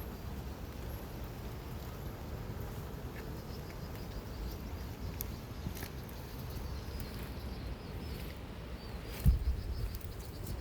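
Strong wind buffeting the microphone as a steady low rumble, with faint high chirping through the middle and a single thump about nine seconds in.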